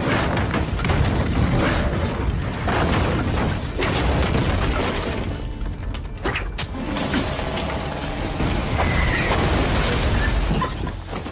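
Film fight sound effects: a dense run of crashes, bangs and rattling impacts over a deep rumble, with music underneath.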